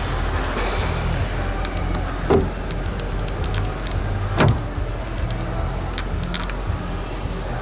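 Steady outdoor background noise with a low hum and faint ticks, broken twice by a short dull thump, about two seconds apart.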